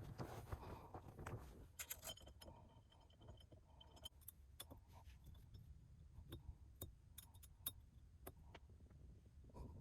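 Faint, scattered metallic clicks and light handling noise of hand tools and small bolts as a quick-release adapter is bolted onto a steering-wheel hub.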